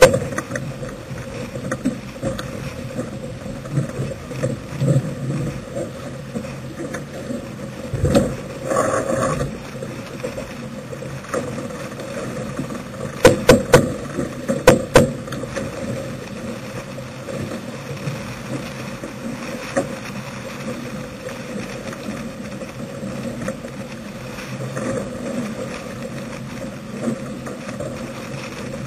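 Wind and water rushing past a sailing yacht's hull under sail. A short run of loud clicks from a sheet winch's ratchet comes about halfway through.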